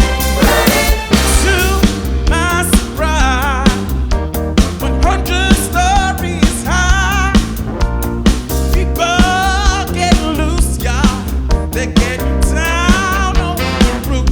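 Disco music: singing with a wide vibrato over a steady beat and heavy bass.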